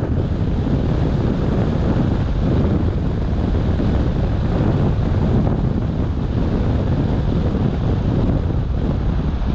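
Steady low rumble of a car driving along a wet road: tyre and wind noise, with no change or single event standing out.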